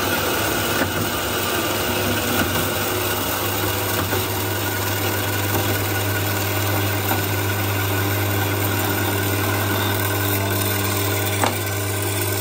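An engine idling steadily, a low even hum that holds the same pitch throughout.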